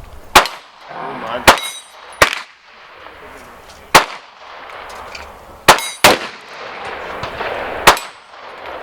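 Gunshots at an outdoor range: seven sharp shots at irregular spacing, two of them less than half a second apart, each trailing a short echo.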